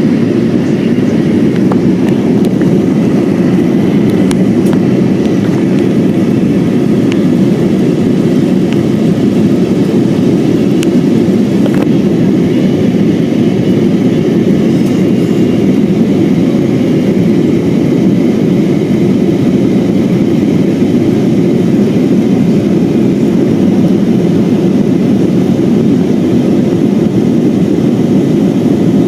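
Steady noise of an Airbus A320's engines and airflow heard inside the passenger cabin, a dense low rumble that holds an even level throughout.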